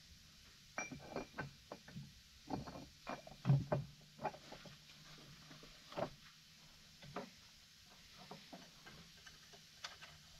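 Irregular metal clicks and taps, some ringing briefly, as a snap ring is worked into place on the drive gear inside a truck transmission case. They come thick in the first half, loudest about three and a half seconds in, then thin out to a few scattered ticks.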